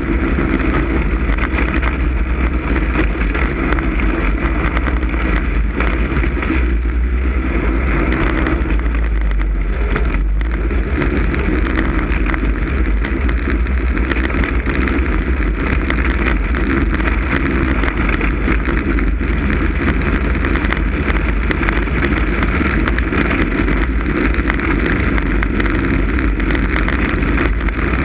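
Snowmobile engine running steadily at riding speed, heard from the camera mounted on the sled, with wind buffeting the microphone.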